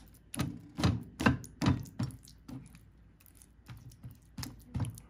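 White plastic spatula pressing and spreading mashed tofu paste over a plate lined with baking paper: a run of soft taps and scrapes, about five in the first two seconds, fewer in the middle, picking up again near the end.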